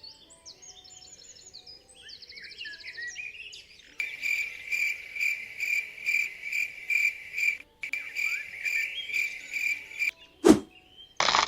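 Cartoon nature sound effects: faint birdsong chirps, then a steady cricket-like insect chirping, high-pitched and pulsing a few times a second. Near the end it gives way to a short sharp swoosh and a loud burst of noise.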